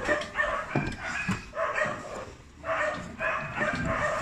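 A dog barking repeatedly in quick runs of short barks, with a few sharp knocks from the rear seat being handled.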